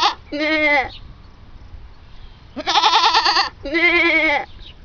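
A goat bleating three times in quick succession, each call a quavering, wavering bleat lasting under a second, the last two nearly back to back.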